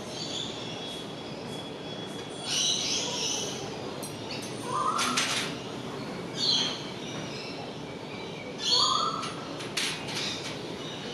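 Birds calling: about five short, high calls a second or two apart over a steady background hiss.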